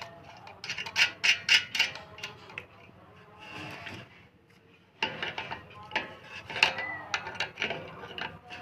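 Metal bolts and a washer being fitted and tightened on a ceiling fan's mounting clamp: quick metallic clicks and scraping in two spells, with a quieter pause in the middle.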